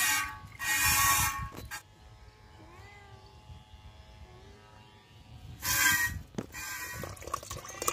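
Milk squirting by hand from a cow's teat into a steel pot, hissing streams for the first couple of seconds and again from about six seconds in. Faint cat meows come in the quieter stretch between.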